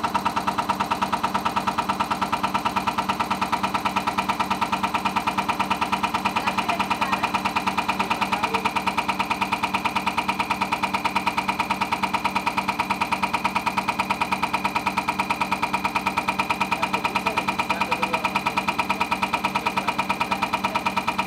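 Hartridge cam box test bench running a Cummins ISX diesel injector at 550 rpm during its automated purge test. It makes a rapid, even mechanical clatter over a steady hum.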